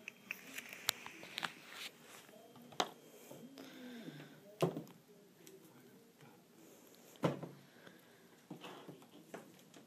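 A handful of sharp taps and knocks at irregular intervals, the loudest a little past halfway, with a brief faint voice sound about four seconds in.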